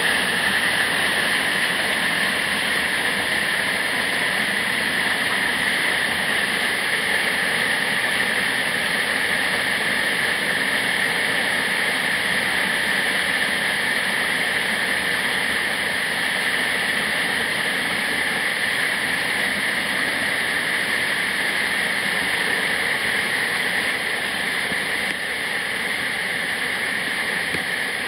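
Waterfall: a steady rushing of falling water, even and unbroken throughout.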